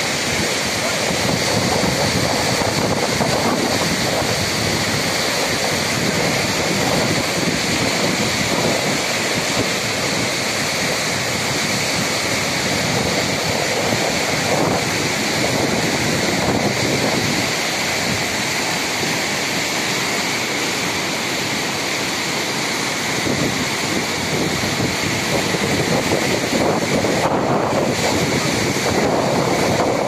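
Loud, steady rushing of the Parvati River's white-water rapids.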